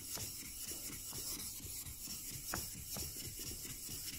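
Steel chisel back being rubbed back and forth on a wet waterstone, a continuous gritty scraping as the back is flattened (lapped) under pressure. A couple of sharp clicks come about two and a half and three seconds in.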